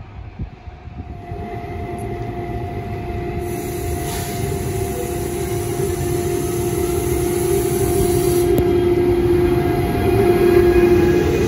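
A train approaching, growing steadily louder as it nears, with a low rumble and a steady humming tone running through it.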